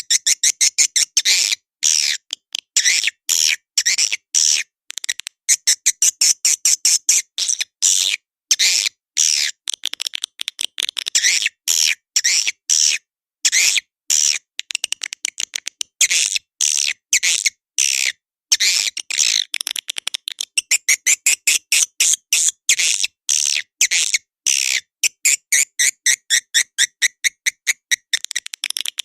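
Swiftlet lure call: rapid, high chattering twitters of edible-nest swiftlets, the kind of call played to draw swiftlets into a nesting house. The twitters come in quick runs broken by many short silent gaps, as in an edited, looped recording.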